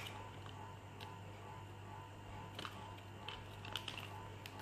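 Faint, scattered clicks and taps of a small stiff cardboard earphones box being handled and pried open, over a low steady hum.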